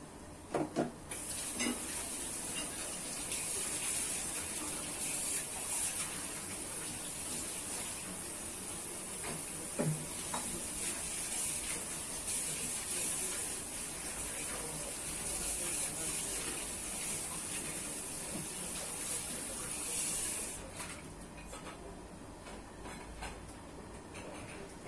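A few light knocks, then water running steadily from a tap as a rushing hiss that starts about a second in and cuts off suddenly near the end.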